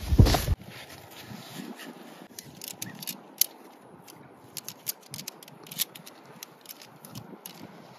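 Tent pole sections clicking and knocking together as the jointed pole is unfolded and slotted into place, after a heavy thump at the start.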